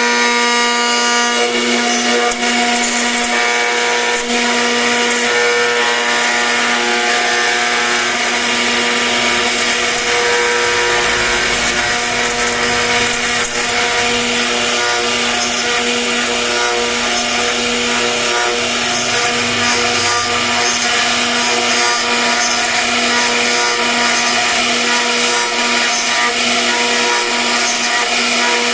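CNC router spindle running at a steady whine while its bit carves wood, with continuous cutting noise.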